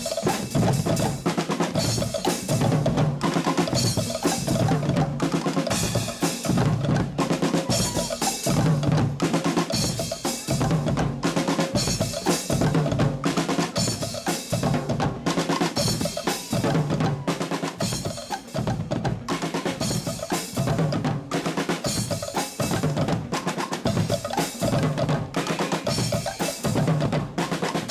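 Guggenmusik percussion section, drum kits with cymbals, snare and bass drum, playing a loud, driving carnival beat with rolls.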